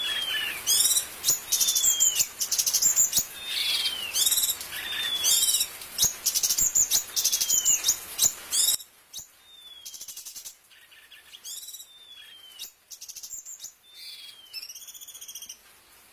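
Cucak cungkok songbird singing: repeated whistled phrases of sharp chirps, falling slurred notes and rapid buzzy trills. About nine seconds in the song drops suddenly to a much lower level and goes on quietly.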